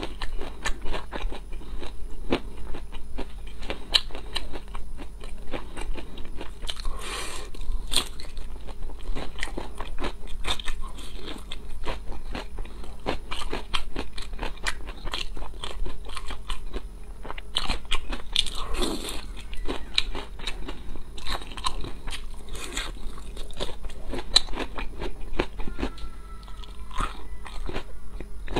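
Close-miked crunching and chewing of crispy fried lotus root slices, a dense run of quick crackling bites and chews.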